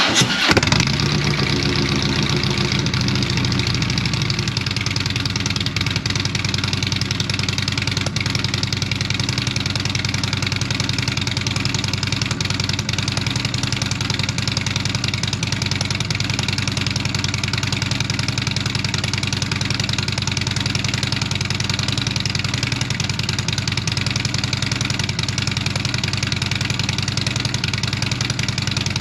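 Harley-Davidson Street Glide V-twin running through a 2-into-2 exhaust with Vance & Hines headers and Rinehart slip-on mufflers. It catches right at the start and runs at a slightly raised idle for the first few seconds, then settles into a steady idle.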